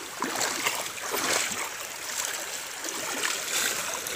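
Shallow river water running and trickling over rocks, with light irregular splashes.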